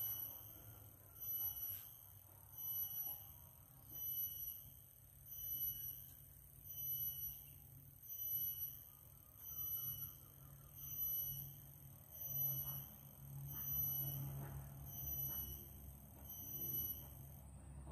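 A forest insect calling: a high, pure tone repeating about once every one and a half seconds, stopping shortly before the end, over a faint low rumble.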